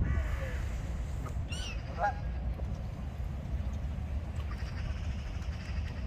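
Waterbirds calling on a pond: a few short honks and squawks from Canada geese and black-headed gulls, mostly in the first two seconds, over a steady low rumble.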